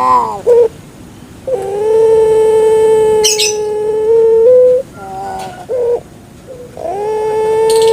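A puter pelung dove (Streptopelia risoria) cooing. A short rising 'kuk' is followed by a long, steady, low coo, then a brief broken note, then another long coo near the end. A short high chirp cuts in about a third of the way through.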